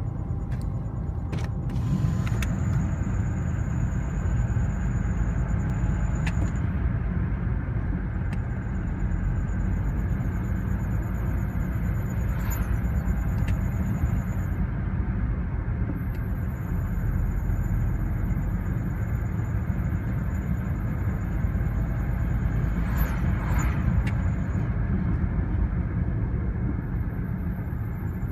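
BMW E90 318i on the move, with a steady low road and engine rumble. A thin high-pitched squeal comes and goes in several long stretches of a few seconds each, which the owner suspects comes from the brakes.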